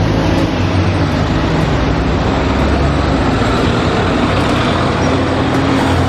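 Engine of a double-decker city bus running steadily as the bus pulls away from a stop, over street traffic noise.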